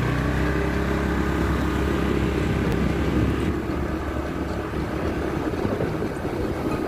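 Motorcycle engine running steadily while riding along, a low even hum with road noise.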